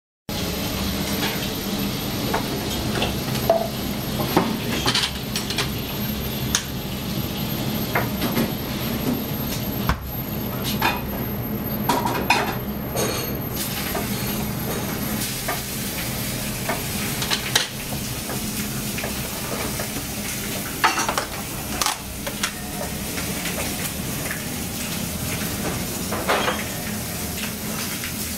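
Restaurant kitchen at work: scattered clinks and knocks of dishes, pans and utensils over food sizzling in pans on a gas range, with a steady low hum underneath.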